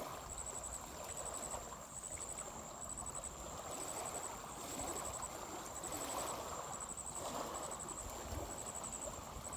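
Small waves lapping on a stony lakeshore, a steady wash that swells and eases. A high insect trill, likely a cricket, repeats in short runs about once a second.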